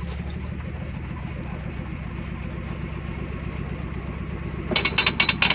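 Engine idling steadily, then a burst of loud metallic clanking and rattling near the end.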